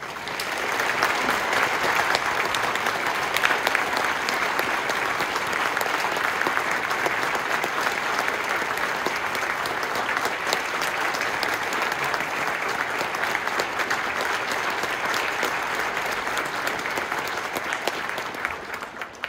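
Audience applauding: a dense, steady clapping that swells up at the start and dies away near the end.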